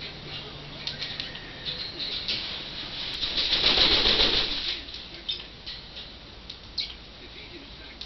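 African grey parrot flapping its wings hard while perched in place: a rush of wingbeats about three seconds in, lasting around two seconds.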